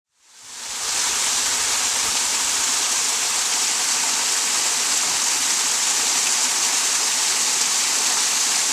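Steady rushing noise, like running water or hiss. It fades in over about a second, holds even without surges or knocks, and fades out at the end.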